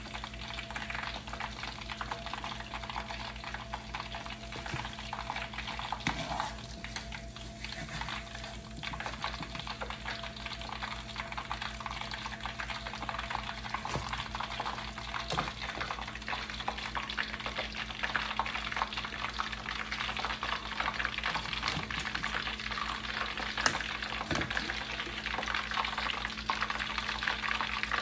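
Hot oil sizzling and crackling steadily in a wok as battered chicken pieces deep-fry, with a few sharp clinks of metal utensils and a steady low hum underneath.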